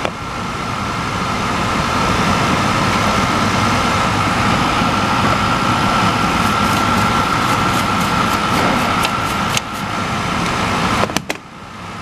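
LG LP0817WSR portable air conditioner running with its back panel off: the compressor runs steadily with a steady whine, which the owner takes for overheating from a clogged condenser. A few sharp knocks come about eleven seconds in, and the sound drops after them.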